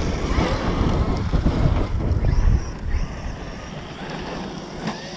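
Wind rumbling on the microphone over a large electric RC truck running on dirt. The noise is loudest for the first two and a half seconds, then eases off.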